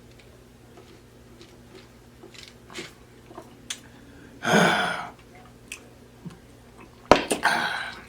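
Mouth sounds after eating: faint wet clicks and smacks, a loud breathy exhale or burp about four and a half seconds in, and a sharp knock near the end followed by a short rush of noise.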